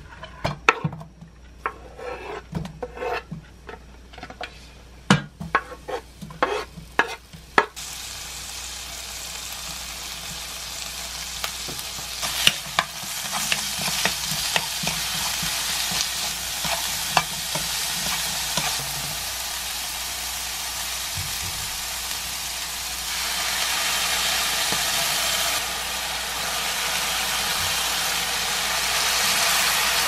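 Onion, bacon and minced garlic stir-fried in olive oil in a nonstick frying pan with a spatula. It opens with a run of sharp taps and clicks, then a steady sizzle starts about eight seconds in, with the spatula clicking against the pan, and grows louder twice.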